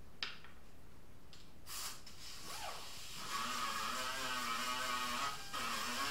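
Air-powered sanding tool on a car hood: a click, then a short hiss of air about two seconds in, then from about three seconds in a steady whine with hiss as it runs against the paint, wavering slightly. It breaks off briefly near the end and starts again.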